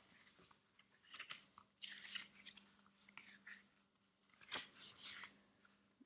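Pages of a thin paperback book being leafed through: a series of faint, crisp paper rustles.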